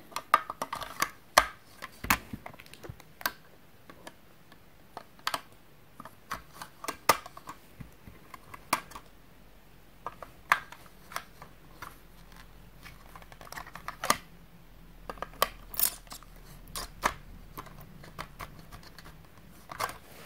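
Hard plastic parts of a mandoline vegetable grater clicking and knocking as its blade inserts are handled and slotted back into the unit: irregular sharp clicks, some louder snaps among them.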